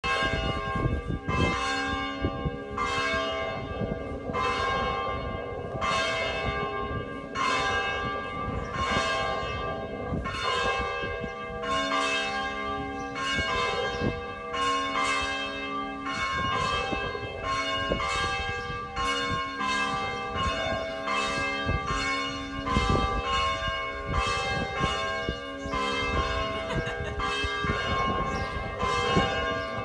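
Church bells ringing in a continuous peal, several bells of different pitch struck in turn, a stroke a little more than once a second, each ringing on into the next.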